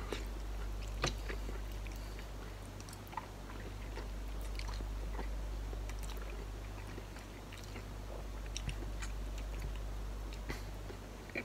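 A man eating instant ramen noodles: chewing and mouth sounds with a few short sharp clicks scattered through, over a steady low hum.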